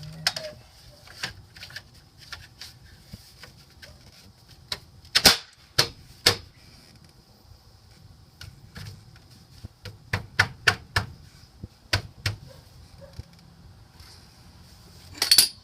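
Irregular sharp clicks and knocks of hard objects being handled, with loud knocks about five and six seconds in and a loud cluster near the end.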